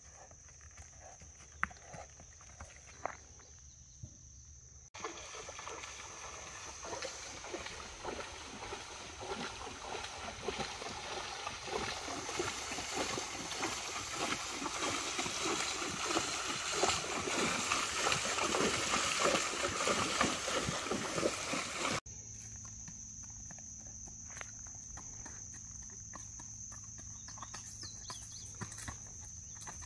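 A horse's hooves splashing through shallow creek water as it wades, a busy, rising wash of splashes that starts about five seconds in and cuts off suddenly about seventeen seconds later. Before and after it come quieter hoof steps on dirt, with a steady high insect drone.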